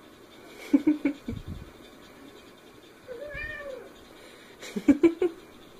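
A cat meowing once, a short rising-and-falling call a little past the middle. Around it come two clusters of sharp thumps and rubbing from hands handling the cat on a bedspread, near the start and near the end, louder than the meow.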